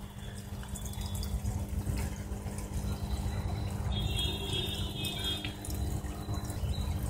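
Water trickling steadily through an aquaponics system's grow pipes, over a low steady hum.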